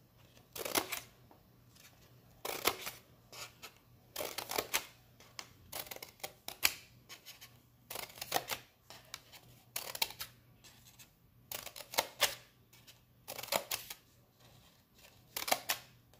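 Scissors snipping through folded construction paper, one short crisp cut roughly every two seconds as a row of half-inch slits is made.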